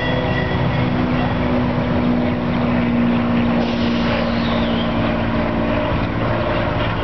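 Diesel locomotive running, a loud steady engine drone with rail and wheel noise; the low engine tone fades out about six seconds in.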